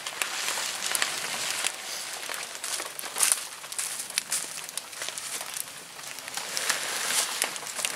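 Nylon tent fabric rustling as it is handled, with footsteps crunching on dry leaves.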